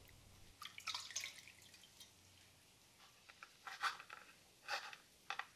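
Faint trickling and dripping of whey as curds are poured into a cheesecloth-lined strainer. Later a few soft knife taps on a wooden cutting board as raisins are chopped.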